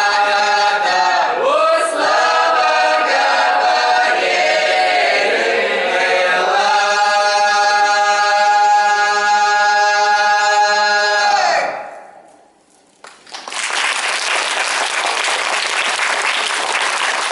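Russian folk ensemble singing unaccompanied in a group, the voices gliding between notes, then holding one long final chord that fades out about twelve seconds in. After a short pause, the audience applauds.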